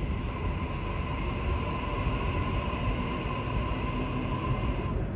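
Sydney Trains double-deck electric train moving slowly through the station, with a low rumble and a steady electric whine from its traction equipment that cuts off near the end.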